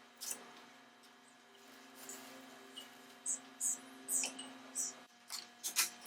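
Light clicks and taps of metal carriage-lamp parts being handled and fitted together, about seven sharp ticks at uneven intervals. A steady low hum runs underneath and drops out for a moment about five seconds in.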